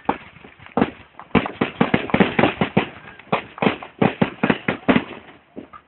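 Fireworks going off in rapid, irregular succession: a stream of sharp bangs and crackles, several a second, thinning out near the end.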